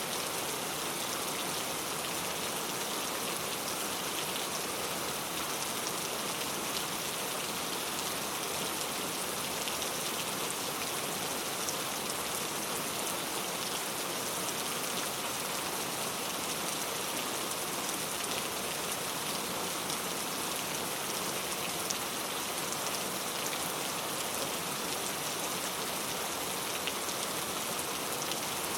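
Steady rain falling, a continuous hiss with scattered individual drops ticking.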